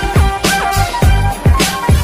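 Upbeat funk-style background music with a steady, punchy drum beat.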